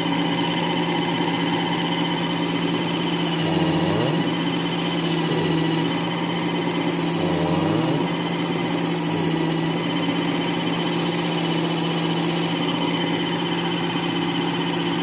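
WorkSharp Ken Onion Edition knife sharpener with the blade grinder attachment running steadily, a knife blade drawn across its fine polishing and honing belt in about five passes. Each pass adds a hiss over the motor's whine, and the motor's pitch dips slightly under the load.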